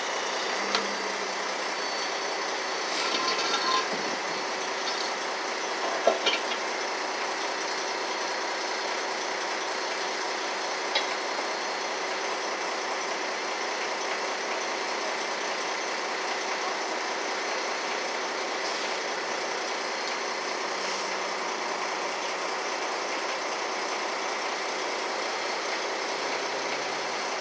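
Heavy truck engine idling steadily, with a few sharp metal clanks and clicks as a tow truck's wheel-lift gear is fitted under the back of a truck.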